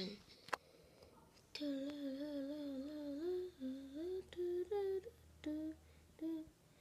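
A child humming a tune with a wavering pitch. It starts about a second and a half in and breaks into short separate notes toward the end.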